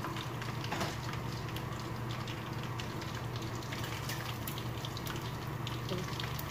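Chicken pieces and ginger frying in hot oil in a pan: a steady sizzle with scattered sharp crackles, over a steady low hum.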